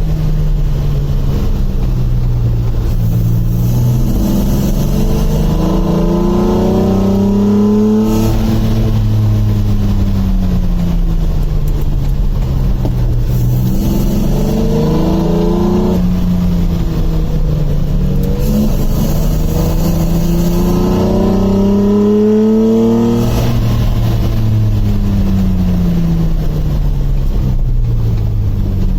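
Jannarelly Design-1's Nissan V6, the 350Z engine, pulling hard three times with the revs climbing steadily, each climb cut off sharply, and the note sinking slowly between pulls and at the end.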